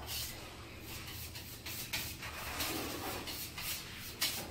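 Faint, irregular scraping and rubbing strokes of grout being worked into the joints of wall tiles, over a low steady hum.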